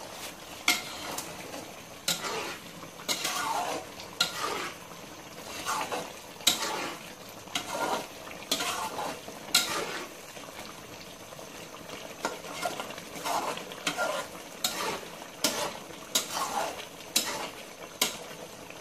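Slotted metal spatula scraping and stirring chicken masala in a metal pot, irregular scrapes about once a second, over a soft sizzle as the masala fries.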